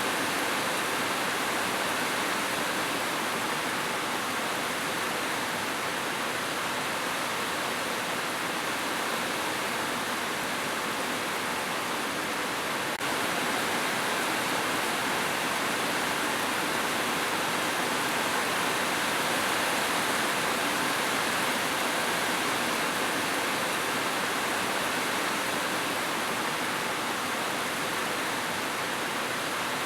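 Steady rushing of flowing water, an even wash of sound with no breaks.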